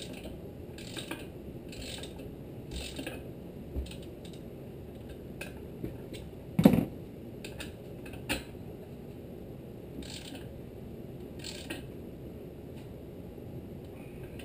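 Socket ratchet turning the flywheel nut down onto a Tecumseh HSK70 crankshaft: short runs of pawl clicking, about two a second at first and then more spaced out, with a single sharp clunk about seven seconds in.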